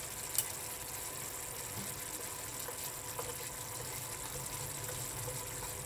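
Potato curry gravy simmering in a frying pan on a gas burner: a steady, even hiss. There is a light click just after the start.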